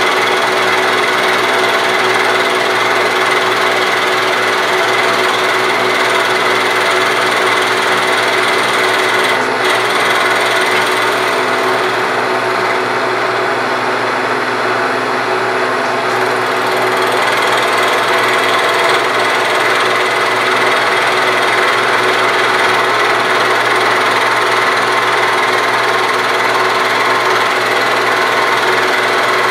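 A power tool with a fast hammering action running steadily against a cast-iron lathe casting, knocking off the old paint.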